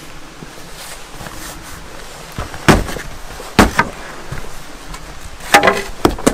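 A wooden support post knocked into position: four hard knocks in two pairs, each with a short wooden ringing.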